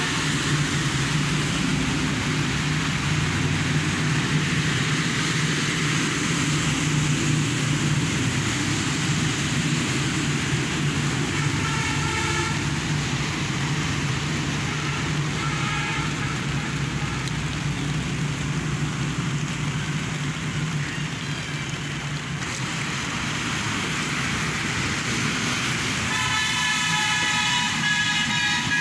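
Steady traffic and rain noise under the low, constant drone of a running vehicle engine. A vehicle horn toots briefly twice near the middle and sounds again for a few seconds near the end.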